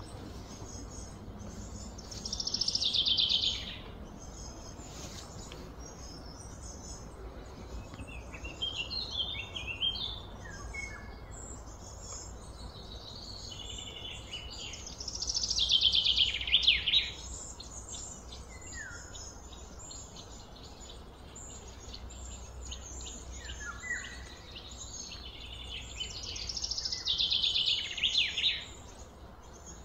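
A songbird singing: three loud phrases, each a fast trill sliding down in pitch for a couple of seconds, with quieter short chirps between them.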